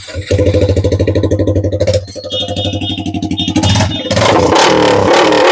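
Yamaha R15 V4's 155 cc single-cylinder engine running loud with its exhaust open, no muffler or bend pipe fitted, a rapid rough pulsing straight out of the header stub. About four seconds in it is revved up and held higher.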